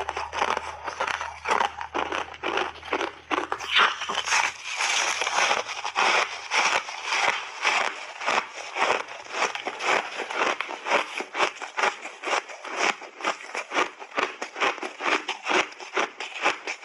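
Close-miked crunching and chewing of refrozen coloured ice: a steady run of crisp crunches, about two to three a second, as the ice is bitten and ground between the teeth.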